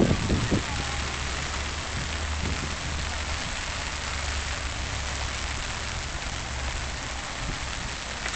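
Steady rain falling, an even hiss, with a steady low rumble underneath and a few brief low thumps in the first half second.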